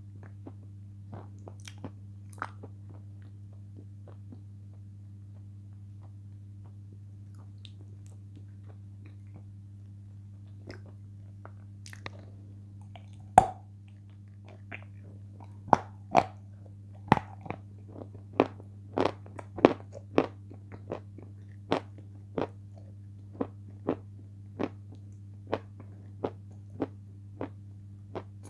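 Close-up chewing of a crisp chip dipped in cream: a few faint mouth clicks at first, one loud bite about halfway, then steady crunching, a little more than one crunch a second. A low steady hum lies under it.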